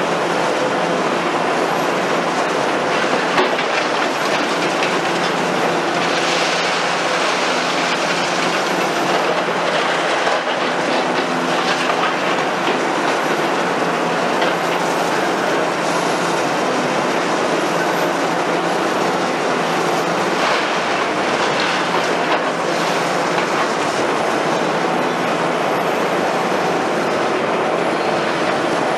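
Liebherr R960 demolition excavator at work: its diesel engine running steadily under load, with frequent metallic clattering and scraping as its demolition shear works concrete and scrap steel rubble.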